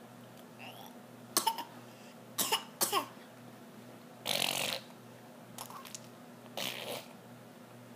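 A toddler making short coughs and mouth noises: about six brief breathy puffs spread out, the longest about halfway through.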